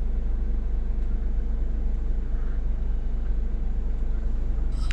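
Scania S500 truck's 13-litre straight-six diesel running steadily at low idle, a low even hum heard from inside the cab.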